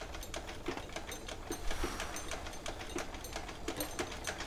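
Vintage hand-cranked sewing machine stitching, a rapid, steady clatter of needle clicks, about four to five a second, with duller mechanical knocks among them.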